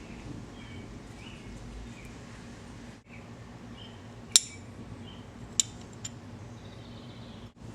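Small metal parts clinking sharply three times, the first the loudest and the other two close together, over a steady low hum, as an outboard fuel pump is put back together.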